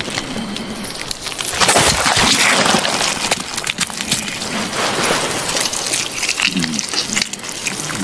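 Wet gore sound effects: blood pouring, dripping and splattering, with many small wet clicks and crackles, loudest about two seconds in.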